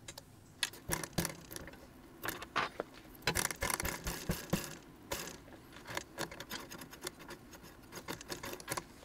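Irregular light clicking and ticking from a 3D-printed worm gear on a steel shaft spun by hand in its ball bearings, with nothing else attached. The clicking seems to come from the bearings, but several sets of bearings all made the same noise, so its cause is unknown.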